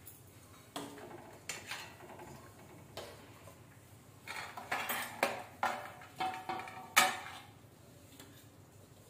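Steel ladle clinking and scraping against a steel kadai and a small steel bowl as curry is served: a run of uneven clinks, some ringing briefly, the loudest about seven seconds in.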